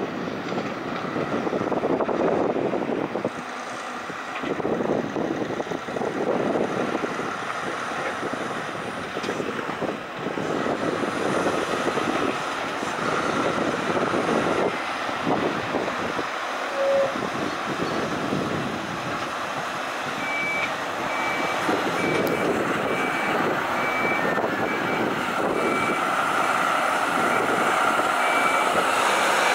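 Mercedes-Benz Arocs five-axle dump truck's diesel engine running as it pulls away and drives along a gravel quarry track. About two-thirds of the way in, a vehicle's reversing alarm starts beeping at a steady high pitch, roughly once a second.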